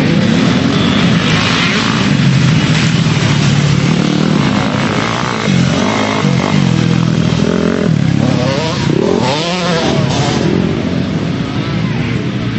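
Motocross bike engines racing on the track, revving hard with their pitch climbing and dropping again and again as the riders work the throttle and gears; one bike passes close about six seconds in.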